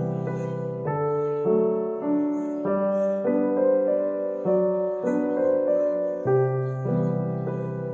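Background piano music: a melody of sustained notes over a low bass line that changes about every second.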